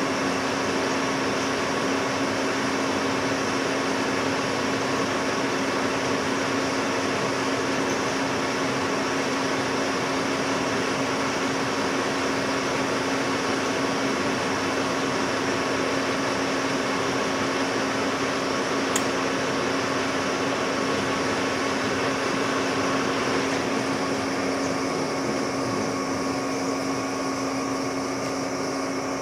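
Metal lathe running steadily while taking a light spring cut on a jack screw: a constant motor and gear hum with one steady tone. About three-quarters of the way through, the higher hiss falls away.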